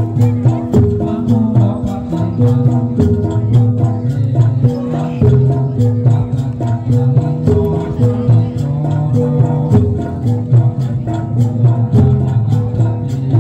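Javanese jathilan accompaniment music played throughout: an ensemble of tuned metal percussion and drums holding steady notes, with a quick rattling or jingling percussion over it.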